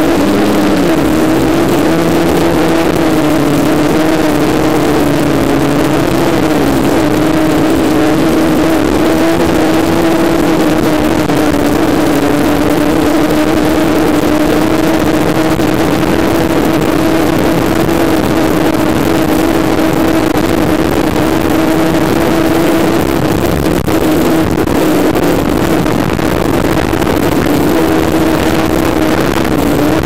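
HobbyKing F550 hexacopter's brushless motors and propellers buzzing in flight, a steady hum that wavers slightly in pitch as the throttle changes, over a haze of wind noise.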